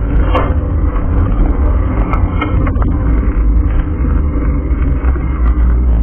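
Wind and ride noise on a bike-mounted action camera's microphone: a loud, steady low rumble, with a couple of small clicks.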